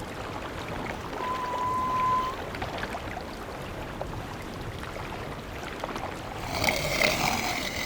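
Sea water sloshing and lapping, with a short steady high tone about a second in. Near the end, a snoring Atlantic walrus dozing in the water gives a loud rasping snore with a held pitch.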